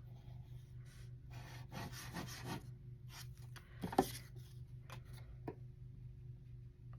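Hands rubbing and handling cardstock, pressing a cut paper panel down onto the side of a paper box, in short irregular rustles with a sharper tap about four seconds in.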